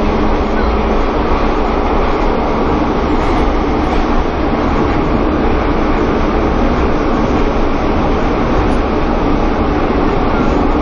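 Pyongyang Metro train running between stations: a loud, steady rumble of wheels and motors on the rails, heard from inside the carriage.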